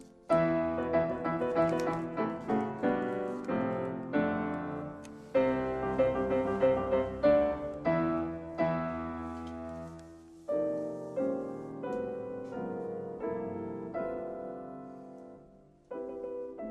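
Solo piano music: slow phrases of struck chords and notes, each ringing out and fading before the next phrase begins.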